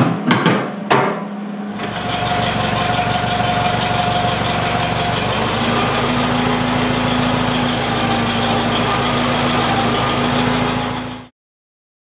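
A few sharp metal clanks as a steel quick-attach plate is knocked into place against a loader bucket, then, from about two seconds in, a Case 430 tractor's engine running steadily at idle, its pitch rising a little about five seconds in; the sound cuts off near the end.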